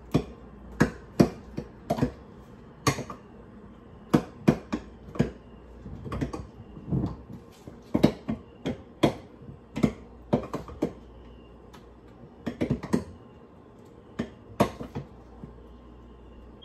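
Irregular sharp knocks and taps of a utensil against a plastic container and bowl as the whipped strawberry cream mixture is scraped in over frozen strawberries, sometimes in quick pairs or clusters.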